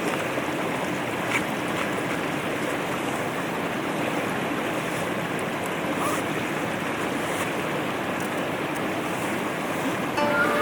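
Steady rushing of a mountain stream, with a few faint clicks. Some short pitched tones come in just at the end.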